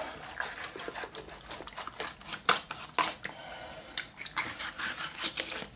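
A filleting knife cutting along a sturgeon's backbone, with irregular short clicks and scrapes as the blade works through the flesh.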